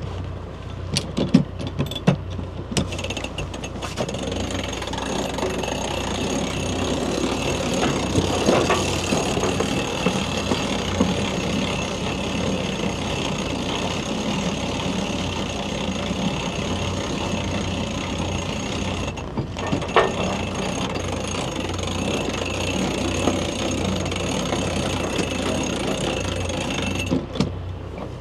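Sailboat's inboard diesel engine running steadily while motoring, under a steady rushing noise, with a few sharp clicks near the start and once about two-thirds of the way in.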